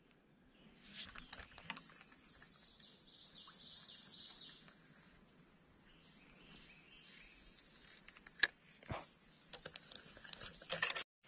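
Faint outdoor ambience of birds chirping in short repeated trills, with a few scattered light clicks or taps.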